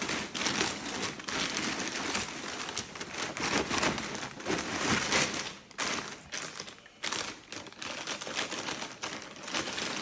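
Packaging of a parcel being handled and torn open: a dense, continuous crinkling and crackling of plastic and paper wrap, with a couple of brief pauses past the middle.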